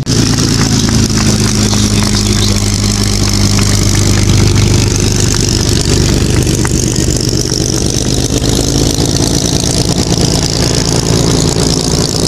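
Yakovlev Yak-3 fighter's piston engine running in a display flypast: a loud, steady drone with a wide hiss over it, swelling to its loudest about four seconds in.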